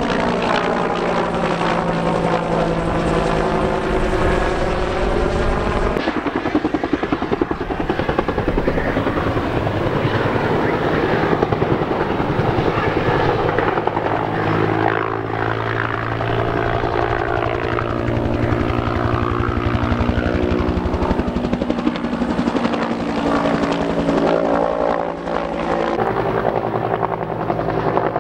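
Firefighting helicopter flying overhead, its rotor beating steadily with the engine's pitch bending as it passes in the first few seconds.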